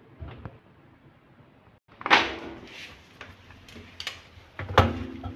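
A top-loading washing machine being opened and handled: a loud clunk about two seconds in, then knocks and clatter as wet sneakers are moved against the perforated steel drum.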